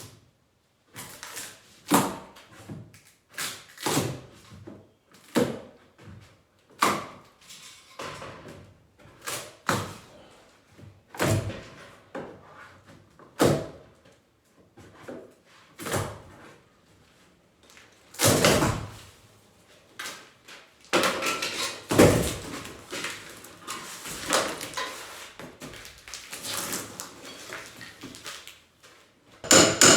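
Demolition of a wall: separate heavy blows and thuds, about one every second or two, each with a short clatter of broken material. A longer crash of falling debris comes a bit past halfway, and the knocks come thicker and closer together in the last third.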